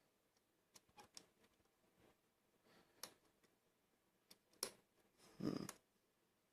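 Faint, scattered clicks of a hook pick working the tapered pins of a Whitco Euro-profile pin-tumbler lock under heavy tension, with a short, louder low sound a little after five seconds in.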